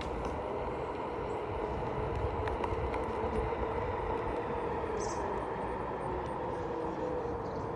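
Onewheel GT's electric hub motor whining steadily as it rolls along a paved path, the whine wavering slightly in pitch with speed, over a low rumble from the tyre on the pavement.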